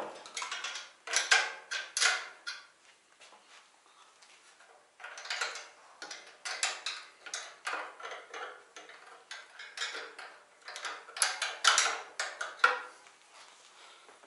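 Rapid metallic clicks and clinks of a wrench working the nuts that lock a belt sander's belt tilt, as they are loosened. The sounds come in three bursts with quieter gaps between.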